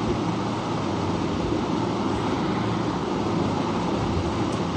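Steady background noise, an even hiss with a low hum and no speech.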